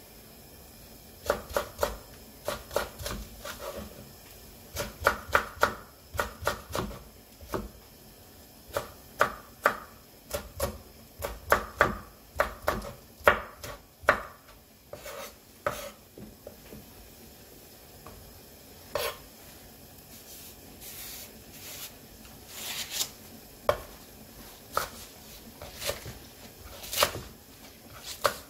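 Kitchen knife chopping cheongyang and red chillies, then green onion, on a wooden cutting board: quick runs of sharp knocks, spacing out to scattered single knocks in the second half.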